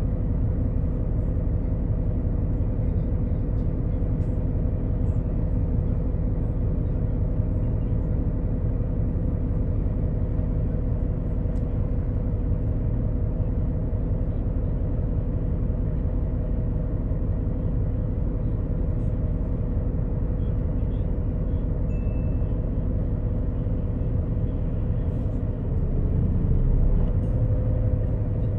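Inside a coach bus, the rear-mounted Doosan DL08S inline-six turbodiesel idling with a steady low drone and hum while the bus stands still, growing a little louder near the end as the bus starts to move off.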